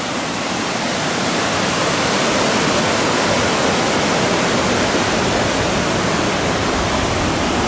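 Rogie Falls, a waterfall on the Black Water river, rushing steadily as it cascades over rocks below.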